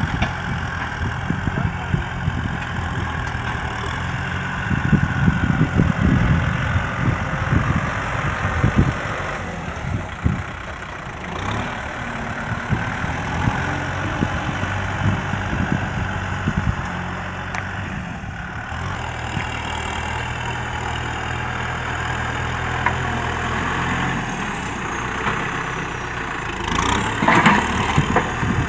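Kubota tractor's diesel engine running under load as it pushes soil with its front dozer blade. It grows louder and rougher for a few seconds about five seconds in, and there is a brief louder burst near the end.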